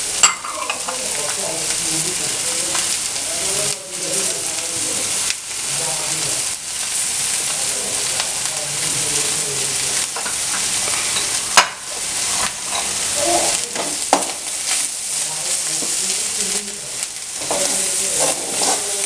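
Vegetables sizzling and frying in a pan as they are stirred, with beetroot and carrot just added. A sharp click of the utensil striking the pan comes just after the start and again about two-thirds of the way through.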